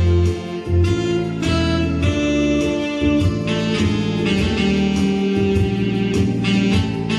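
Music: an instrumental piece with sustained chords and a plucked-string sound, played continuously.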